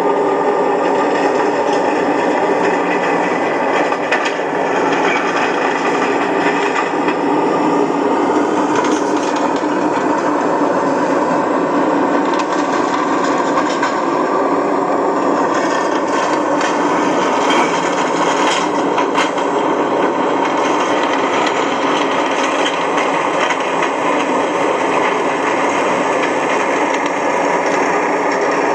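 Steady mechanical running noise, continuous and even, with a few faint steady tones and some clicks around the middle.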